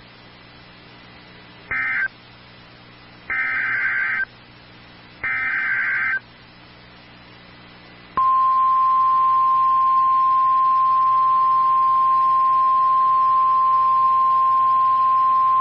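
NOAA Weather Radio emergency alert: three short bursts of SAME digital header data, then the single steady 1050 Hz warning alarm tone starting about eight seconds in, announcing a tornado warning.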